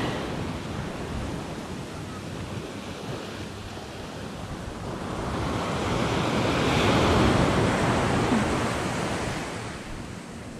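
Ocean surf breaking and washing up the beach; a wave builds to a louder rush about halfway through, then fades.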